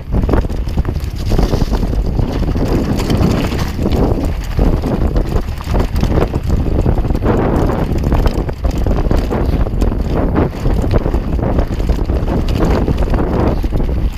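Wind rushing over the camera's microphone as a mountain bike descends fast over a dirt trail, with the tyres rolling on the dirt and frequent knocks and rattles from the bike over the rough ground.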